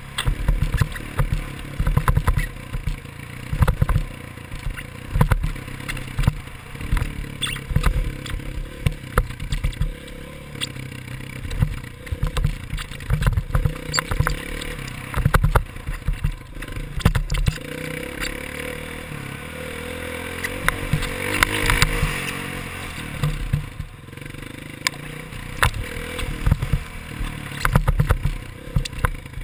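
Dirt bike engine running and revving as it is ridden over a rough dirt track, heard from a helmet-mounted camera, with rattling knocks from the bumps. The engine climbs in pitch and gets brighter about two-thirds of the way through.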